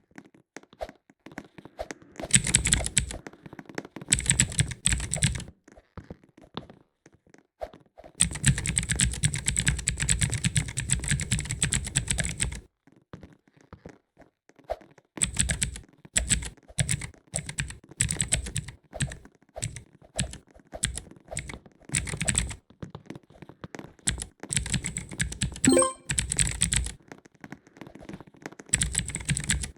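Mechanical keyboard switches on a keyboard tower being pressed rapidly, clicking in fast runs separated by short pauses.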